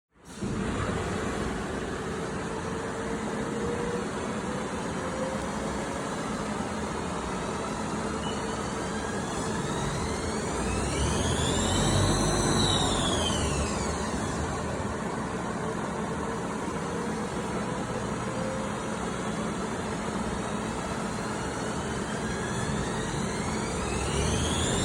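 Haas ST-20 CNC lathe running with its steady machine noise. Its spindle whine climbs in pitch and falls back again in a slow arch, once about midway and again near the end, as the spindle speeds up and slows down.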